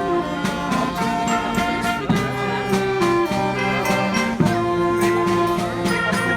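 Live street band playing: horns hold and change notes together over drums keeping a steady beat.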